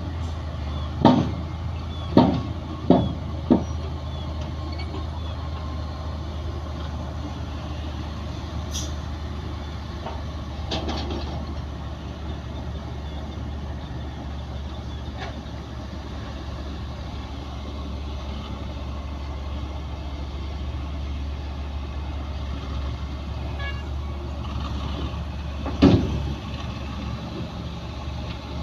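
Heavy diesel earthmoving machinery running steadily with a low drone. Four sharp clanks about a second apart come in the first few seconds, and another clank comes near the end.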